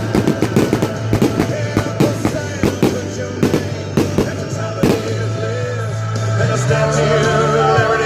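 Rapid cracks and bangs of a consumer firework cake going off over background music, dense for about five seconds, then thinning out while the music carries on.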